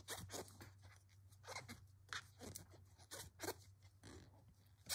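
Faint scratchy rustling of yarn being worked with a metal crochet hook, in short irregular strokes a few times a second as single crochet stitches are made.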